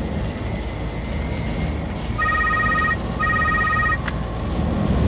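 Telephone ringing twice, two short warbling electronic rings, then a sharp click about four seconds in as it is answered. A steady low workshop hum runs underneath.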